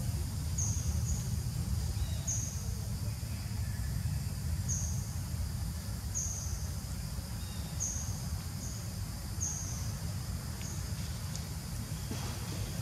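Outdoor ambience: a steady low rumble, with short high-pitched chirps repeating about every second and a half over it.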